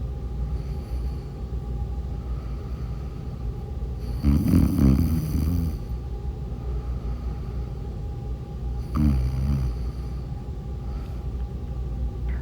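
A woman snoring in her sleep: two snores about five seconds apart, the first longer and louder, the second brief. A steady low hum runs underneath.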